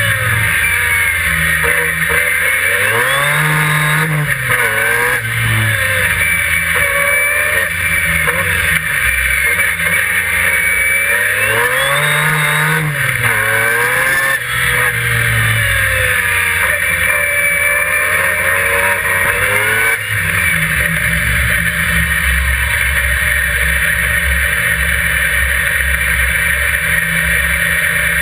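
Turbocharged Mazda 13B two-rotor rotary engine of an open-wheel hillclimb racer, heard on board at racing pace: the revs climb and fall again and again through the gears. About twenty seconds in it drops to a steady low note.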